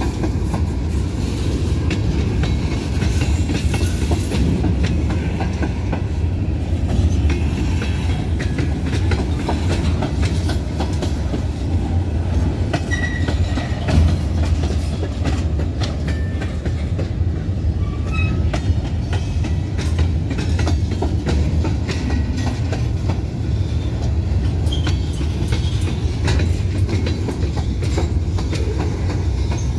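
Covered hopper cars of a Union Pacific freight train rolling past: a steady rumble of steel wheels on rail with rapid clickety-clack over the joints and crossing, and a few short high squeaks from the wheels.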